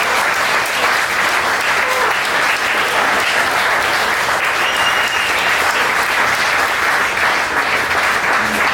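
Audience applauding, a steady spell of clapping throughout.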